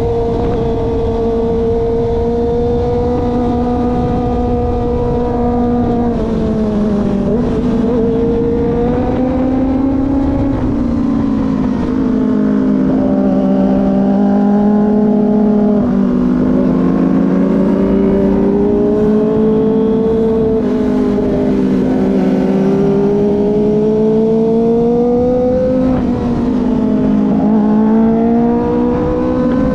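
Kawasaki ZX25R's 250 cc inline-four engine cruising at steady high revs. Its pitch dips and climbs again several times with throttle and gear changes. Wind rushes under it.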